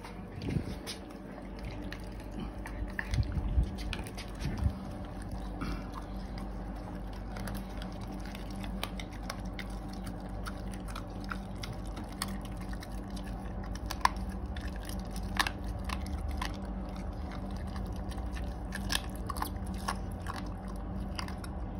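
Staffordshire bull terrier chewing a raw treat: irregular crunches and clicks of its teeth on the food, with two louder cracks about two thirds of the way through.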